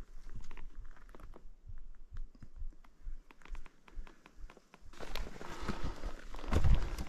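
A hiker's footsteps on a forest trail: soft, scattered ticks at first, then louder crunching steps from about five seconds in, with a heavier thud near the end.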